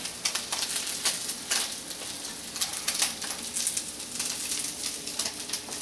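Crab cakes frying in hot oil in a pan: a steady sizzle with constant popping and crackling.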